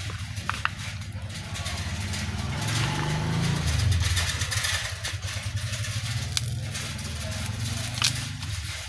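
A motor vehicle engine running, its low drone swelling to a peak a few seconds in and then easing off, as when a vehicle passes. A few sharp clicks sound over it.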